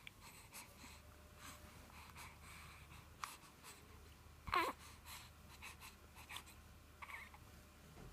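A five-week-old baby making one short squeaky vocal sound, falling in pitch, about halfway through, with faint scuffs and small noises around it.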